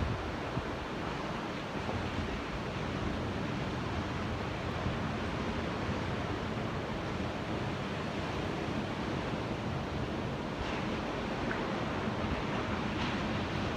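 Ocean surf: a steady, even wash of waves breaking, with no single wave standing out.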